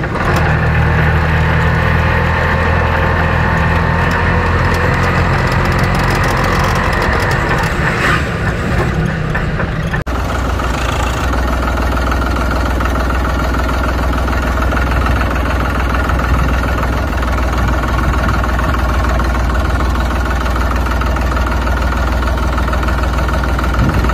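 An engine running steadily at idle, with a low, even drone. About ten seconds in, the sound breaks off and goes on with a changed note.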